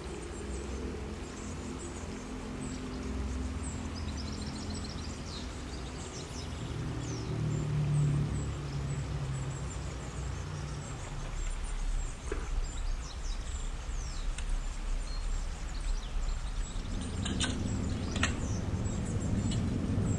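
Outdoor ambience: a steady low rumble, with birds chirping now and then. Near the end come a few sharp clicks of metal tongs against a steel pressure cooker pot.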